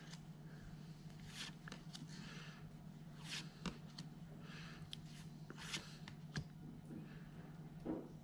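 Pokémon trading cards being handled and slid across one another on a pile: faint, scattered flicks and rustles of card stock, over a low steady hum.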